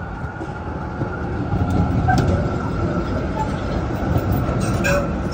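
Melbourne B2-class tram passing close by on street tracks: a continuous low rumble of wheels on rail that grows louder after about a second, with a steady high tone above it and a few light clicks.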